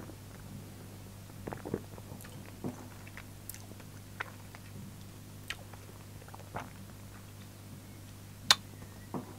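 Faint mouth sounds of a man tasting a mouthful of beer: scattered small smacks and clicks of the lips and tongue over a steady low hum. One sharper click comes about eight and a half seconds in.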